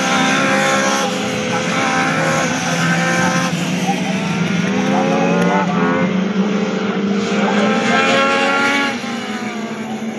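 Several Legends race cars with high-revving Yamaha motorcycle engines racing past, their overlapping engine notes rising and falling through gear changes. The sound drops a little about nine seconds in.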